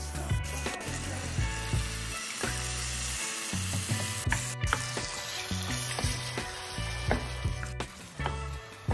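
Onion and spice paste sizzling in a frying pan as coconut milk and water are added, with a wooden spatula scraping and stirring through it.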